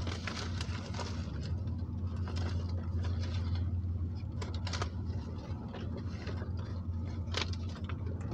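A steady low hum with scattered faint clicks and rustles, like handling noise while a number is being looked up.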